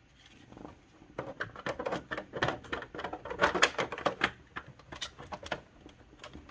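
A quick, irregular run of small plastic clicks and rattles from hands handling the computer hardware, thickest in the middle and dying away near the end.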